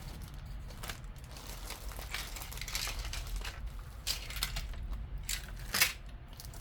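Rustling and light clicks of small sewing-machine accessories and their packaging being handled, with a sharper click near the end.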